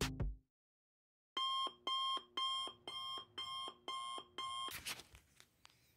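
Digital alarm clock beeping: about eight pulsed beeps at a little over two a second, which stop abruptly with a click, followed by faint rustling.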